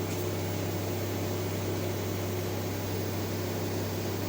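Steady electrical hum and fan noise from a running TIG welding machine and its water cooler, level throughout with no arc being struck.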